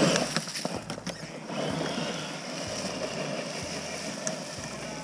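Electric motor and geared drivetrain of a radio-controlled scale rock crawler whirring steadily as it crawls over loose ground.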